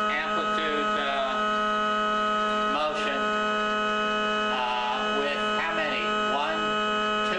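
Vibration shaker driving a strip of sheet metal at high frequency near its third resonant mode: a steady, even buzzing hum with a stack of overtones.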